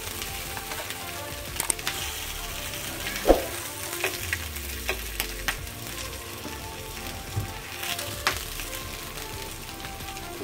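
Chicken pieces shallow-frying in oil in a flat pan, sizzling steadily. Sharp clicks and scrapes of steel tongs against the pan come through as the pieces are lifted out, the loudest a little over three seconds in.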